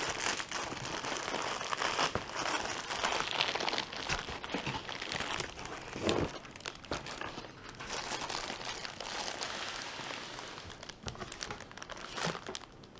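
Packaging crinkling and rustling, with many small clicks and knocks, as a boxed LED studio light is lifted out and unwrapped.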